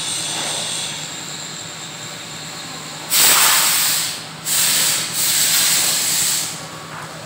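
Three loud bursts of hissing, the first starting about three seconds in and the last stopping shortly before the end, over a steady low hum.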